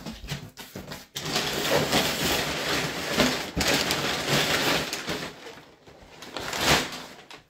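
Crumpled brown kraft packing paper rustling as it is pulled out of a cardboard shipping box. There is one long spell of rustling, a short lull, then another burst near the end.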